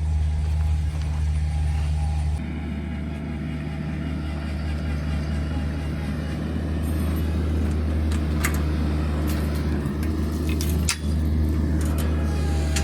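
Diesel engine of a Bobcat MT100 mini skid steer running steadily, its sound thickening a little about two seconds in. A few sharp clicks and knocks come in the second half.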